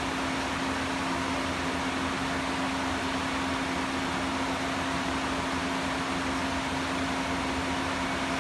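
Steady hum and hiss of running factory machinery, with one constant low-pitched tone and no change in level.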